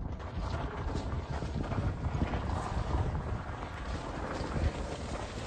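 Wind buffeting the microphone: an uneven low rumble with scattered faint clicks.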